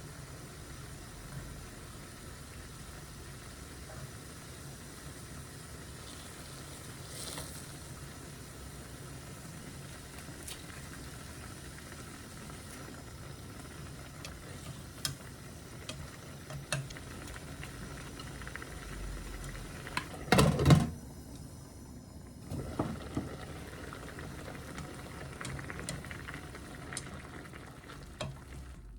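Kitchen cooking sounds: a steady sizzle or simmer from a pan or pot, with occasional light utensil clicks and a louder clatter about twenty seconds in.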